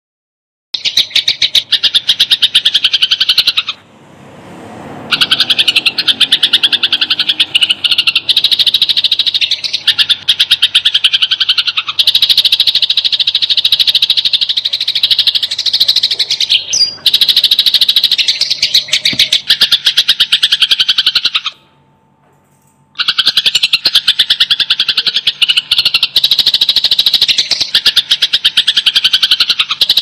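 Sparrows giving a rapid, dense string of harsh chirps: the agitated chatter of fighting sparrows. It starts just under a second in and drops out briefly twice, about four seconds in and again about two-thirds of the way through.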